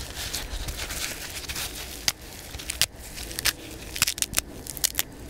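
Perilla leaves frozen stiff in the cold, crackling and snapping as hands crumple and tear them: a run of irregular sharp, crisp crackles.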